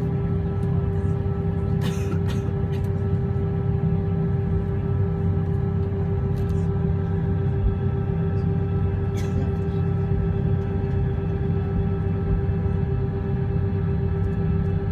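Airliner cabin noise: a steady engine rumble with a constant droning tone running through it, and a few faint clicks and rattles.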